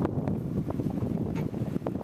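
Wind buffeting a handlebar-mounted camera's microphone, an uneven low rumble with a few short clicks.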